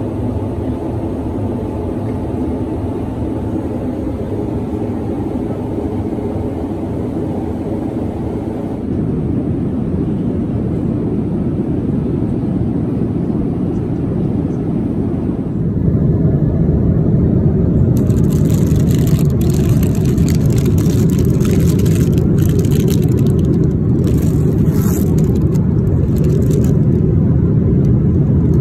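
Steady roar of a Boeing 787-9 cabin in flight. From about 18 seconds in, crinkling of a plastic-wrapped children's activity pouch being handled is heard over it.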